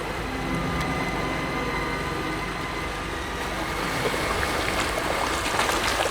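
Steady rushing water noise, with a faint low hum under it early on.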